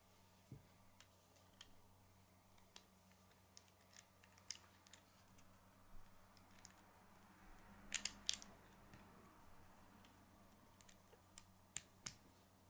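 Plastic K'nex rods and connectors clicking as they are handled and snapped together: scattered sharp clicks, with a quick cluster of louder snaps about eight seconds in and two more near the end.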